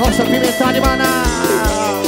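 Live arrocha band playing an instrumental passage: a melodic lead over a steady drum beat.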